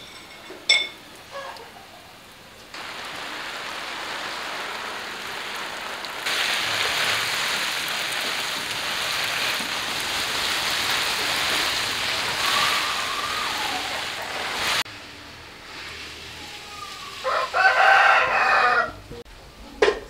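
Water spraying from a garden hose onto plant leaves, a steady hiss for about twelve seconds that gets louder partway through. Near the end a rooster crows once, loudly, and a small bird chirps briefly near the start.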